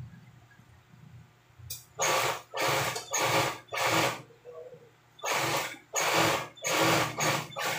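Large fabric shears cutting through seat-cover material, a short snip with each stroke: four cuts about two seconds in, a brief pause, then four more.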